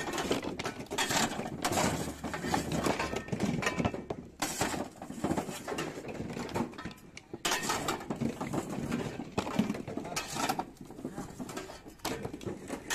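Dehusked coconuts tumbling and knocking together in irregular clattering bursts as a long-handled spade pushes them off a truck bed into plastic tubs.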